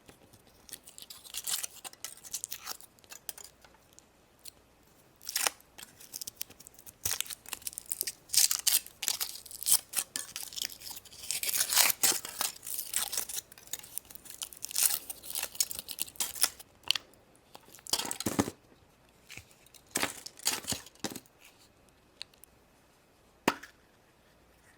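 Foil wrapper of a chocolate surprise egg being torn and crinkled off by hand, in irregular bursts of crackling with a few sharp snaps, as the egg and its toy capsule are opened.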